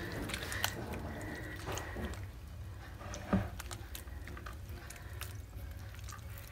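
Bare hand kneading soft butter in a plate of thyme water, the washing step in making smen: faint wet squishing with small scattered clicks, one a little louder about three seconds in.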